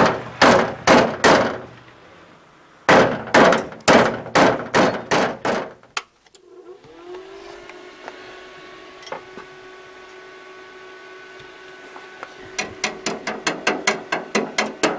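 Hammer blows on the sheet-steel cab panel of a UTB 650 tractor, about three a second in two runs with a short pause between. Then a welding inverter is switched on and its cooling fan rises to a steady hum; near the end a quick run of regular ticks, about four a second, sets in over the hum.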